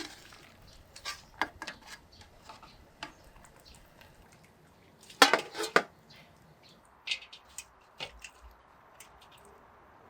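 Dishes and cutlery clinking and knocking at a meal: scattered short clicks, with a louder cluster of knocks about five seconds in.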